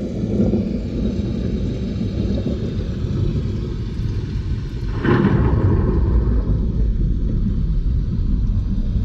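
Deep, dense rumbling noise played through a car audio system, heaviest in the bass, with a louder, brighter surge about five seconds in.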